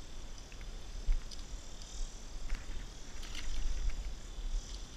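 Steady high-pitched chorus of summer insects, with a low rumble and a few light knocks, the sharpest about a second in.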